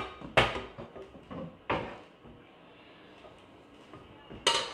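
Rummaging in a lower kitchen cabinet: four sharp clunks of the cabinet door and pots knocking together, the loudest near the end, with a quiet stretch between.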